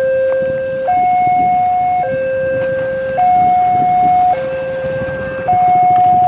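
Railway level crossing warning alarm sounding with the barrier lowered: an electronic two-tone signal stepping back and forth between a lower and a higher note about every second, the warning that a train is approaching.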